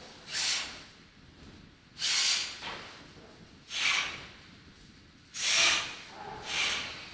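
Sound installation giving out short bursts of hiss, five in the span, each under a second long and spaced irregularly about a second or so apart.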